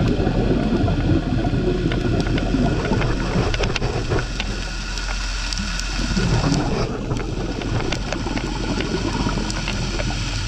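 Underwater sound of a diver breathing: exhaled air bubbling out in uneven gurgling rushes, easing off for a second or two midway. Many sharp small clicks and a steady low hum sound underneath.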